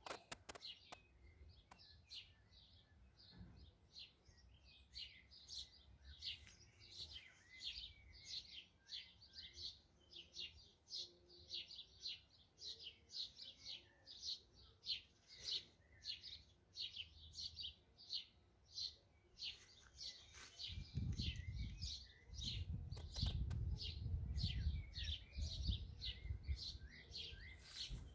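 Garden songbird chirping over and over, short high notes about twice a second. A low rumble joins in about three quarters of the way through.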